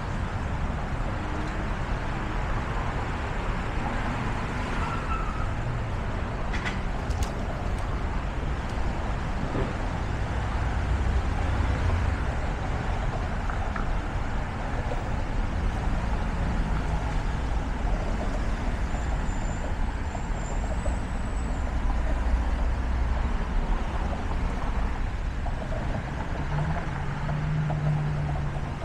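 Road traffic flowing steadily along a busy city street: passing vehicles' engines and tyres make a continuous low hum, with a couple of brief clicks about seven seconds in.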